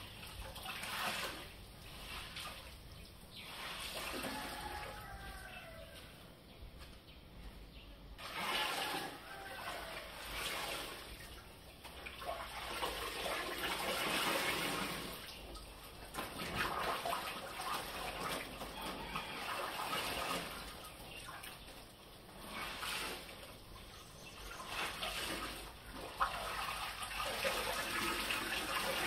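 Clothes being washed by hand in plastic basins: wet cloth sloshing and being wrung, with water splashing and pouring back into the basin in repeated swells every few seconds.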